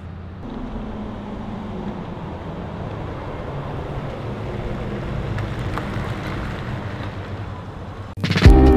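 Chevy Express van driving past on a street, a steady engine and tyre noise that grows a little louder and then eases off. Loud electronic music cuts in near the end.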